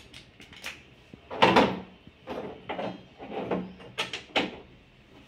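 Metal stand brackets, screws and a screwdriver knocking and clattering against the TV's back panel as they are handled and set in place: a series of short knocks, the loudest about a second and a half in.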